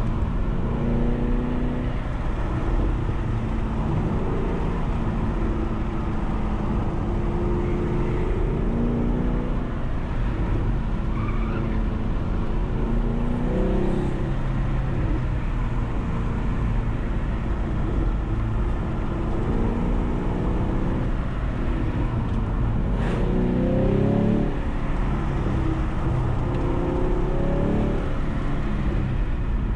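Car engine pulling through the gears on a winding road, its pitch repeatedly rising under acceleration and dropping as it shifts or lifts off, over a steady rumble of road and tyre noise.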